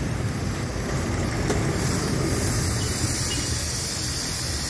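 Mitsubishi Mirage's engine idling steadily under the open hood, with the air-conditioning compressor switched off.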